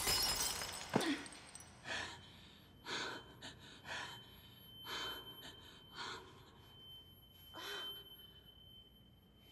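A hot dish smashes on a wooden floor with a crash of shards, followed by a sharp knock about a second in. Then come a woman's short gasping breaths, about one a second, over a thin high steady ringing tone.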